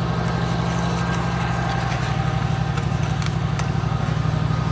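An engine idling steadily with an even, fast throb.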